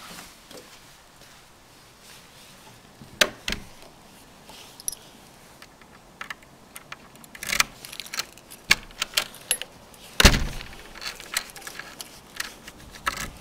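A bunch of keys jangling and a key being worked in a door lock, with scattered sharp clicks and knocks; the loudest knock comes a little after ten seconds in.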